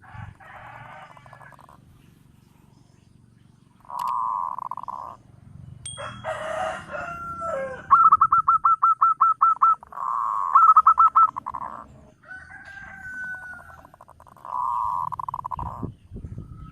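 Zebra doves calling in repeated bouts of rapid cooing notes near one pitch, the loudest a fast staccato trill about eight to eleven seconds in. A longer call with falling pitch comes about six seconds in.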